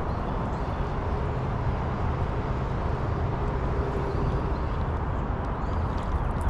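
Boat motor running steadily, a low hum under an even rushing of wind and water.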